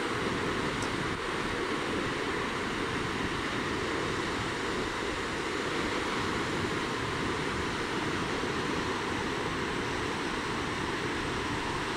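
Ocean surf breaking and washing ashore, a steady continuous rush of water noise.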